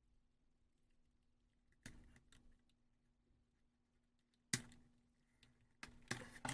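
Sparse light clicks and taps from small plastic drone parts and a tool being handled on a work surface during disassembly, over a faint steady hum. There is a pair of clicks about two seconds in, the sharpest one about four and a half seconds in, and a quick cluster near the end.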